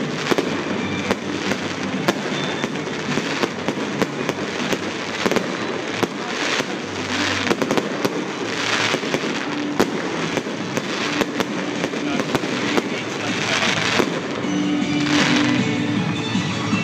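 Fireworks display: aerial shells bursting in a continuous stream of sharp bangs and crackling. Music plays alongside and becomes clearer near the end.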